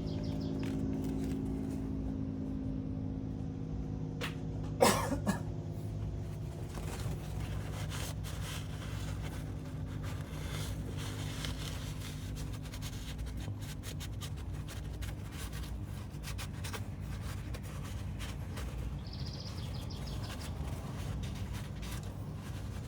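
Hand tools clicking and clinking on the engine as the serpentine belt is taken off, with one sharp metallic clank that rings briefly about five seconds in, over a steady low hum.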